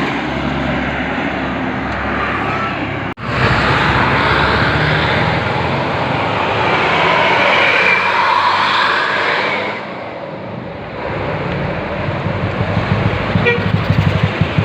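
Tour bus air horns sounding over loud road traffic and bus engine noise, with a sudden break about three seconds in and a lower engine rumble near the end.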